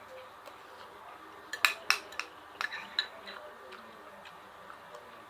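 Cutlery clinking and tapping against a dinner plate, a quick run of sharp clicks in the middle of the stretch, then quieter.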